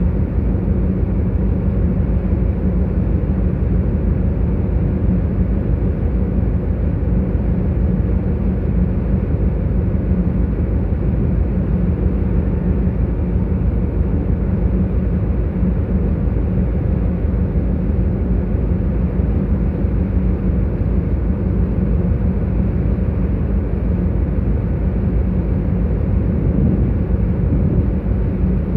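Ferry under way at sea: a steady deep drone of the ship's engines with a constant hum, over the rush of water foaming along the hull.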